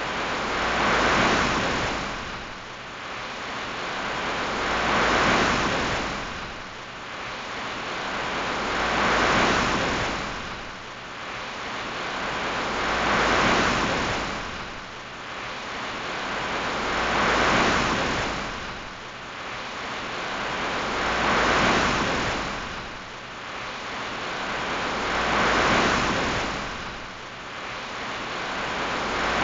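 Sea waves washing in and drawing back in an even rhythm, a swell about every four seconds, seven in all.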